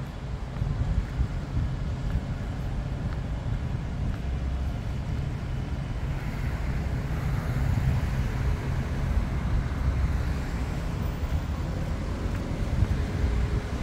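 Road traffic noise with a constant low rumble; partway through, a vehicle passes, its tyre noise swelling and fading away.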